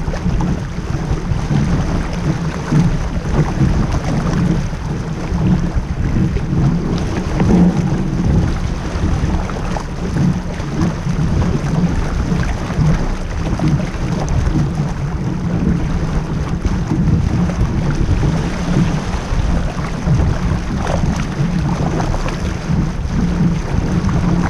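Wind buffeting the microphone over the rush of water along the hull of a small sailboat under way: a continuous low noise that swells and eases without pause.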